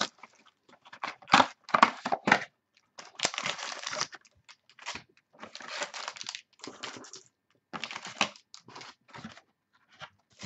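Packaging of a 2013 Sterling football card box being torn open by hand: wrapping crinkling and tearing and cardboard rustling, in a string of short irregular bursts.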